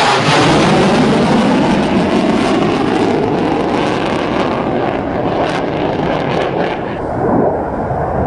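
Military jet fighter's engines in a low, fast flyby: loudest as it passes at the start, the pitch dropping as it goes by, then a loud jet rumble that slowly fades as it flies away.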